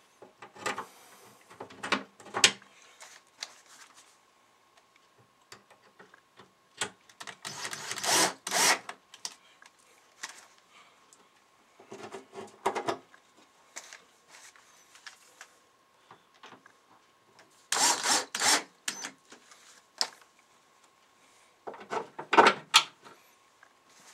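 Wooden back panel of a Leslie 147 speaker cabinet rubbing and scraping against the cabinet as it is worked into place, in about five short bouts separated by pauses.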